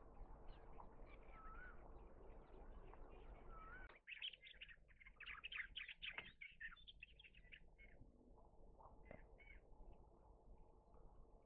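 Faint bird chirping, with a quick run of short, high chirps starting about four seconds in and lasting about four seconds, then a couple more chirps.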